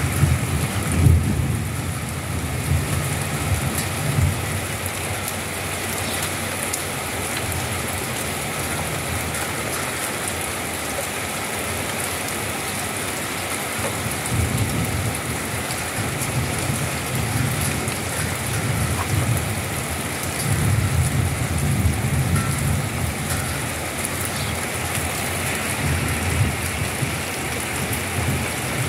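Steady rain falling, an even hiss, with low rumbles swelling and fading several times.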